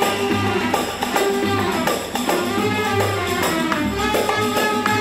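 Instrumental interlude of an Egyptian popular song: the band plays melody over a steady percussion beat, with no singing.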